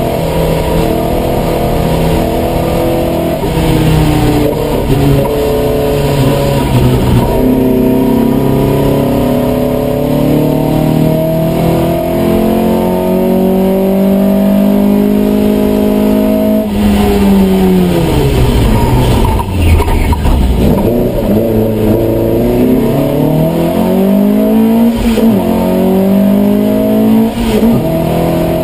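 Opel Kadett C race car's engine at high revs, heard from inside the cabin during a hill-climb run. Just past halfway the revs fall steeply, then rise again, with a smaller dip and climb near the end.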